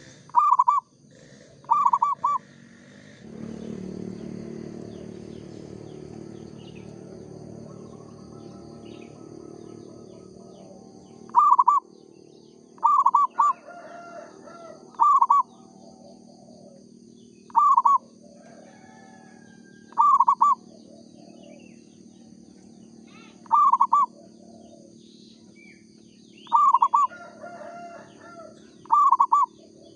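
Zebra dove (perkutut) cooing in short, clipped phrases of a few quick notes, repeated about ten times a few seconds apart, with a long pause in the first half. A low hum runs underneath for several seconds early on.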